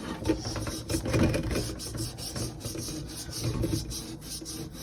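A scrub pad rubbing quickly back and forth over a tea kettle, with a steady run of rasping scrubbing strokes.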